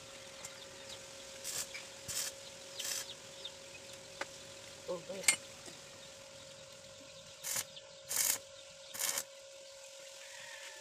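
Stick (arc) welder tack-welding a small steel cylinder: about six short bursts of arc noise, each a fraction of a second, in two groups, over a faint steady hum. A sharp click comes about five seconds in.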